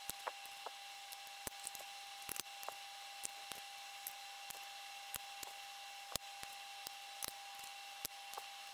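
Light, irregular clicks and taps, one or two a second, from a metal round pastry cutter against a stone worktop and a glass bowl of water as rounds of semolina gnocchi dough are cut out. A faint steady hum sits underneath.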